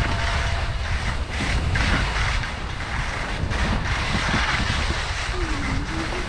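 Wind buffeting the microphone while skis hiss and scrape over rough, tracked snow, with a few short scrapes and knocks as they ride over bumps.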